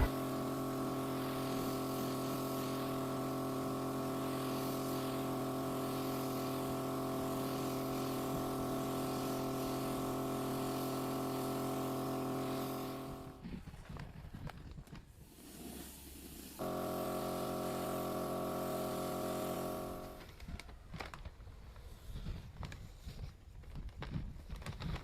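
A machine running with a steady, unchanging hum that stops abruptly, starts again for a few seconds, then cuts off and leaves irregular knocking and handling sounds.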